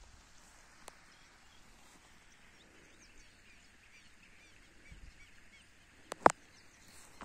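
Faint chirping of small birds over a quiet open-country background, with a single sharp click a little after six seconds in.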